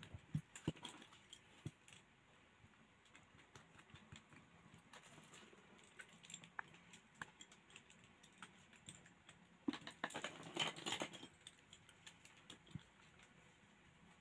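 Faint scattered clicks and light rattling of small objects being handled on a workbench, with a short louder clatter about ten seconds in.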